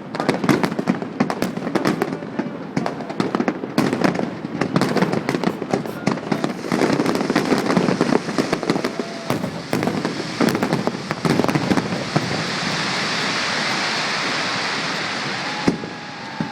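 Aerial fireworks bursting in rapid succession, a dense run of sharp bangs and cracks. After about twelve seconds it eases into a steady crackling hiss of falling stars, broken by one sharp bang near the end.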